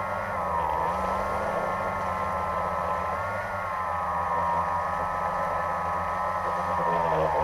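Multirotor drone's electric motors and propellers buzzing steadily in flight, the pitch dipping briefly about half a second in and again near the end.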